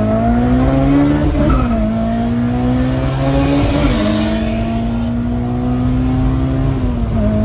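Honda S2000's four-cylinder engine pulling hard through the gears: its pitch climbs, drops sharply at upshifts about a second and a half and four seconds in, holds steady, then drops again near the end as the throttle eases.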